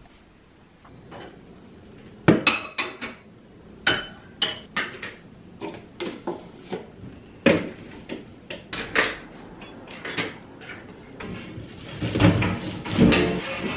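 Kitchenware clattering as it is handled and put away: irregular clinks and knocks of dishes and containers, with a denser metallic clatter near the end as a metal baking tray is handled.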